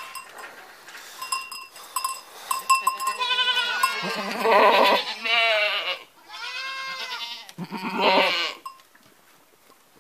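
Goats bleating: several long, wavering bleats, overlapping, loudest about halfway through and again near the end. A small bell clinks a few times in the first seconds.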